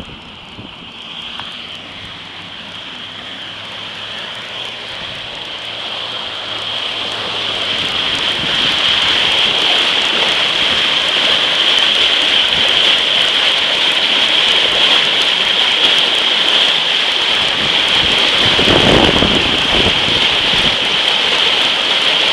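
Floodwater from an overflowing creek rushing and pouring onto a flooded field: a steady hiss of running water that swells over the first several seconds and then holds loud. A brief low rumble comes near the end.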